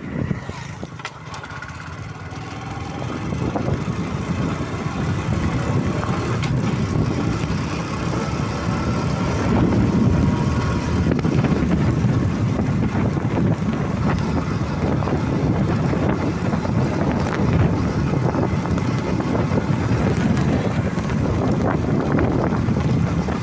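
Motorcycle engine pulling away and picking up speed, its pitch rising through the first few seconds, then running steadily while riding along a road.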